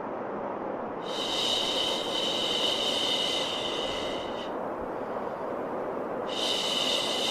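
Steady white noise for soothing a baby, with a long 'shhh' shushing sound laid over it twice: one lasting about three and a half seconds from about a second in, and another starting near the end.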